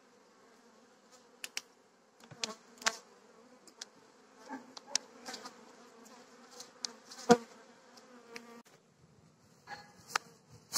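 Carniolan honeybees humming steadily over an open hive, with sharp clicks and knocks of wooden frames and a hive tool being handled, the loudest about seven seconds in. The hum stops shortly before the end.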